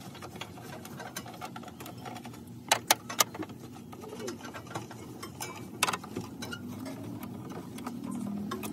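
Black plastic engine-bay cover being worked loose by hand: a few sharp plastic clicks and knocks, three in quick succession a little under three seconds in and single ones near six seconds and near the end.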